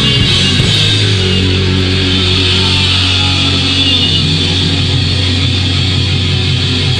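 Heavy metal band playing loud, with distorted electric guitar over a low note held steady from about a second in.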